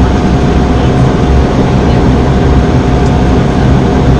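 Cabin noise of a Porter Airlines De Havilland Dash 8 Q400 turboprop airliner: a steady, loud drone of the engines and propellers, with a low hum and a constant tone above it.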